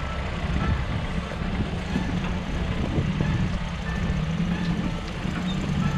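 Off-road 4x4 vehicle's engine running as it drives on, with a short high beep repeating about once a second.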